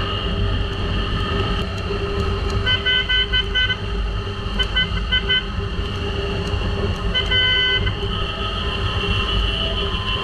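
A vehicle horn honking: two runs of short quick beeps, then one longer honk, over the steady rumble of a motorcycle engine and wind noise while riding.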